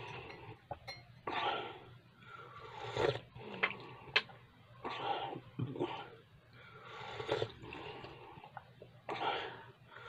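Person slurping tea from a glass mug: about half a dozen short noisy sips a second or two apart, with a sharp click about four seconds in.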